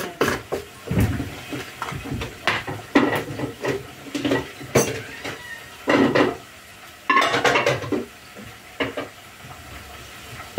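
Kitchen clatter: dishes, pots and cutlery knocking and clinking at irregular intervals, with a brief flurry of clinks about seven seconds in.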